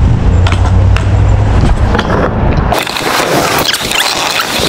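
Kick scooter wheels rolling over asphalt with wind rumbling on the microphone and a few sharp clicks. About two and a half seconds in it changes abruptly to a clattering rattle of the wheels over brick pavers, with many sharp clicks.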